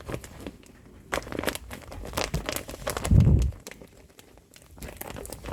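Rustling and crinkling handling noises made up of many short clicks, with one loud, low thump about three seconds in.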